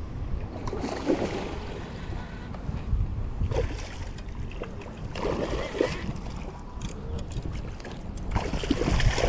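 Wind rumbling on the microphone, with a hooked bass splashing at the water's surface a few times as it is fought toward the bank.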